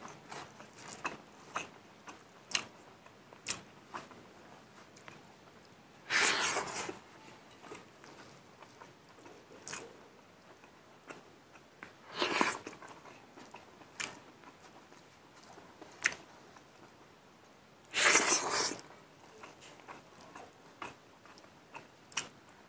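Close-up eating sounds of a man eating rice and mustard greens by hand: wet chewing with frequent small smacking clicks. Three louder, noisier bursts come about six seconds apart as handfuls go into the mouth.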